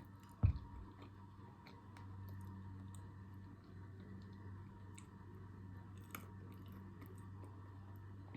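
Close-up chewing of a chocolate-covered banana, with small wet clicks and smacks. A single low thump sounds about half a second in, and a steady low hum runs underneath.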